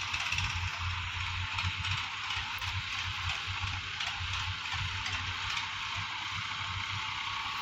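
Diesel tractor engine running with a low, uneven chugging, under a steady hiss.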